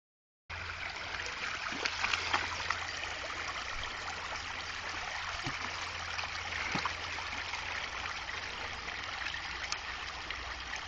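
Shallow stream running over stones, a steady rush of water, with a few small splashes about two seconds in as a small dog wades through it.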